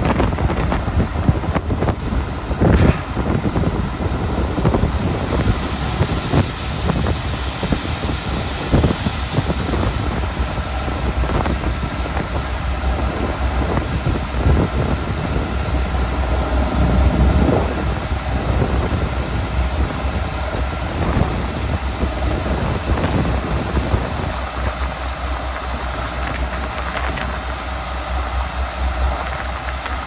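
Case IH tractor's diesel engine running steadily, driving the auger of a J&M grain cart that is unloading shelled corn into a gravity wagon.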